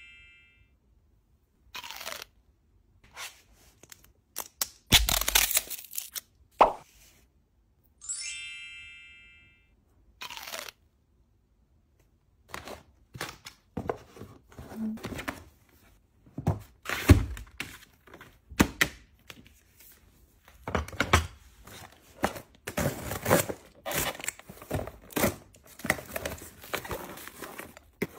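Gift packaging being handled and opened: cardboard boxes and lids knocked, slid and set down with thuds, crackling and tearing, busier in the second half. An added chime sound effect rings once about 8 seconds in.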